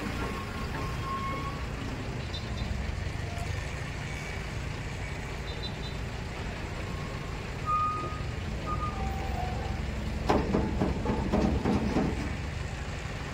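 Diesel engine of an Escorts F17 pick-and-carry crane running steadily as it lifts a steel girder, with scattered short warning beeps. About ten seconds in, workers' voices call out.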